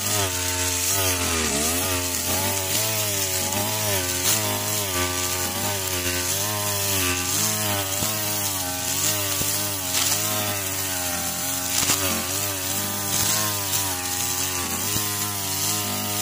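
Backpack two-stroke brush cutter running and cutting grass. The engine's pitch rises and falls repeatedly as the throttle is worked through each sweep, over a steady buzz and a hiss.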